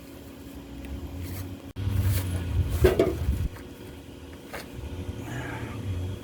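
A few light knocks and handling noises over a low rumble that swells for a second or two.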